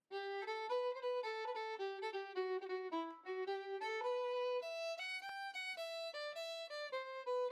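Solo fiddle playing a melody: quick short notes at first, then longer held notes from about halfway through.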